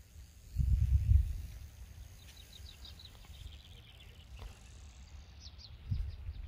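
Wind buffeting the microphone in low rumbles, loudest in the first second and a half. A small bird gives a quick run of high chirps in the middle and a few short falling notes near the end.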